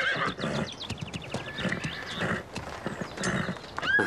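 A horse whinnying, the call falling away in a quavering trill, then hooves clopping steadily at a walk, about two steps a second. A second whinny starts near the end.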